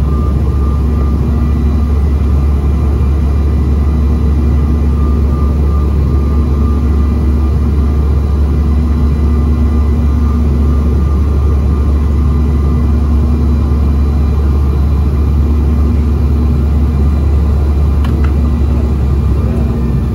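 Cabin noise inside a Bombardier CRJ-900 regional jet on final approach with flaps extended: a steady, loud low rumble of airflow and engines, with a few steady whining tones from the turbofans.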